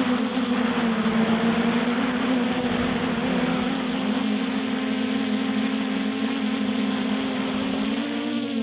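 Multirotor drone's propellers buzzing steadily in flight, heard from on board as a constant hum over a hiss. The pitch rises slightly near the end.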